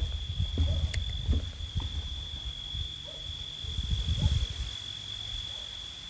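A cricket trilling on one steady high note, over the low thumps of footsteps walking, heaviest in the first two seconds and again about four seconds in.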